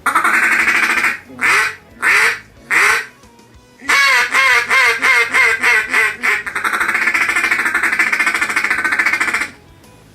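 Rais-A-Ruckus Pro Series cocobolo double-reed duck call blown in a mallard sequence: a long opening note, three single quacks, a fast run of quacks, then a rapid rolling feed chuckle held for about three seconds. The double reed gives it a raspy, somewhat muted tone.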